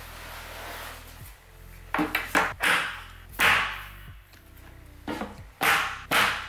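IKEA SEKTION cabinet doors being fitted and shut: a series of about seven sharp wooden knocks and clacks, several close together, after a moment of rustling handling.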